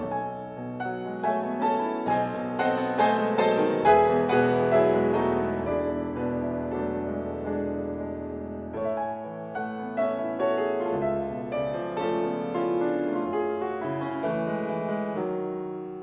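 Bechstein grand piano played solo, an improvisation in F-sharp minor: a busy run of struck notes and chords over the first few seconds, chords left ringing and fading, then a new phrase from about nine seconds in that softens toward the end.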